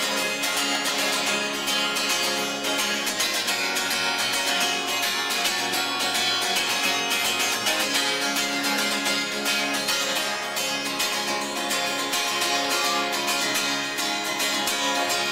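Acoustic guitar strummed steadily with no singing: an instrumental passage between verses of a song.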